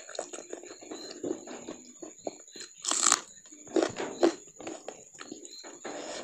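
Close-up chewing and wet mouth smacks of someone eating a mouthful of rice and meat, with a short hissing burst about three seconds in and two louder smacks soon after.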